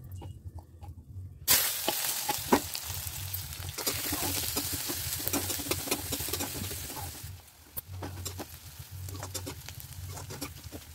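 Sliced onions and green chillies frying in hot oil in a kadai. A loud sizzle starts suddenly a second or two in, and a slotted metal spatula clicks and scrapes against the pan as it stirs them. The sizzle dies down about seven seconds in, while the scraping goes on.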